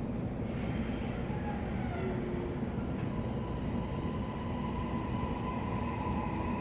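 Toei 6500 series subway train running with a steady rumble. A steady high electric whine sets in about halfway through.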